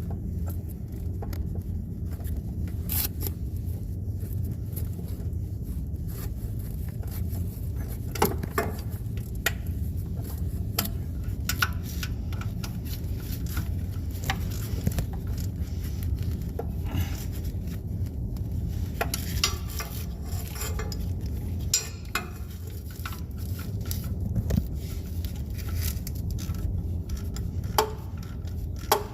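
Scattered metallic clinks and taps of hand tools on metal while a starter motor is bolted in, over a steady low hum.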